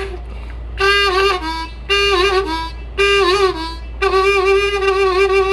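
Diatonic harmonica played with the lips (pucker technique): three short phrases in which the note bends down and comes back up. From about four seconds in comes a long held note.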